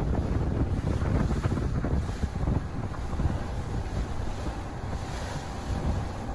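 Wind buffeting the microphone on the open deck of a moving cruise boat, over the rush of choppy lake water. The low, gusting noise stays fairly loud throughout.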